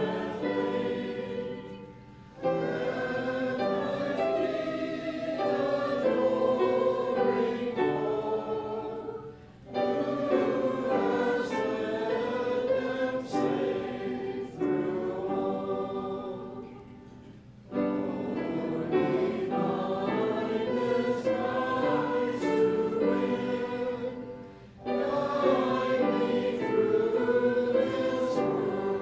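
A group of voices singing a hymn together in long phrases, with a brief break between each line.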